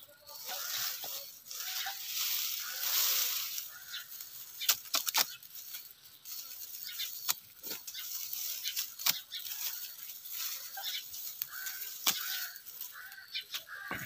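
Dry garlic stalks and straw rustling as they are handled, with many sharp snaps and clicks as stalks are cut or broken off the bulbs. The rustling is heaviest in the first few seconds; separate snaps follow.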